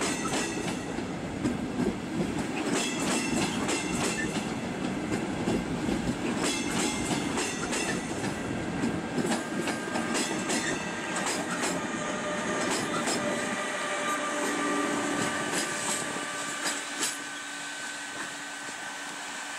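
Electric passenger train of double-deck coaches rolling past, its wheels clicking rapidly over rail joints. About halfway through, steady whining tones join in as the electric locomotive at the end of the train goes by, and the sound drops away near the end.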